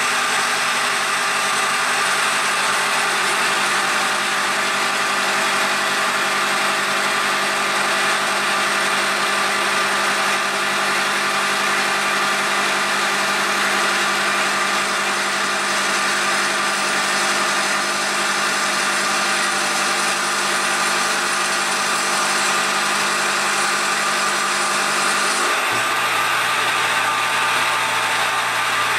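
A PM-727M CNC milling machine side-milling a bar with an end mill under flood coolant: a steady machining whine over the hiss and spatter of the coolant spray. Near the end the pitch of the machine tone shifts abruptly.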